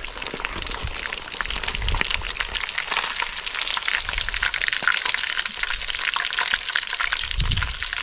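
Grouper frying in hot oil in a small wok: a dense, continuous sizzling crackle of spitting oil, with a few low thumps.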